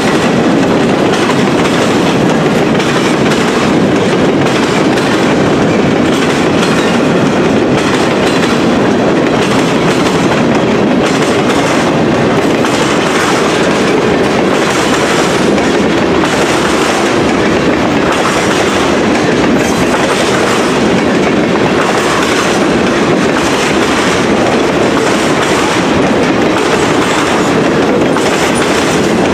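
Freight cars rolling past on the track: a loud, steady rumble with the clickety-clack of steel wheels over the rail joints.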